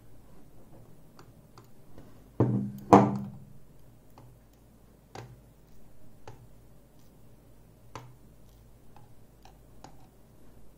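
Small metal lock parts and tools being handled on a work surface during the take-down of a lock cylinder. Two louder clattering knocks come about two and a half seconds in, half a second apart, followed by light, scattered clicks.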